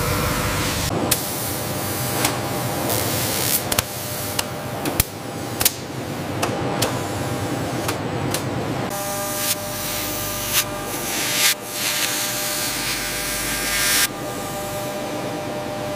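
Automated phone-assembly machinery, likely polishing and handling equipment: a steady hiss and hum broken by many sharp mechanical clicks. The hum changes character about nine seconds in.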